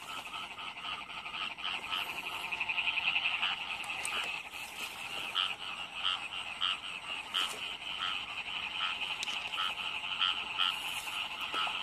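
A dense chorus of many paddy-field frogs calling together after heavy rain: a steady, pulsing trill, with louder single calls repeating about twice a second.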